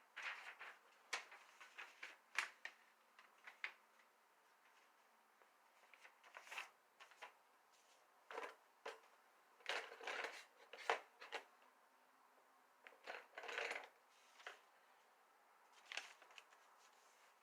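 Faint, irregular clicks and rustles of handling, a dozen or so scattered small knocks at no steady rhythm, with no motor running and no stitching.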